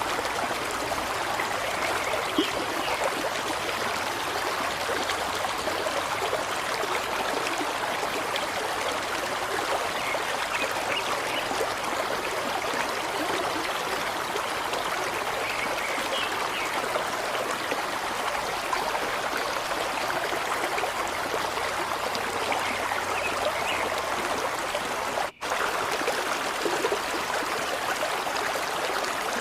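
Steady flowing water, a continuous stream-like rush with small trickling flickers, broken by a momentary dropout about 25 seconds in.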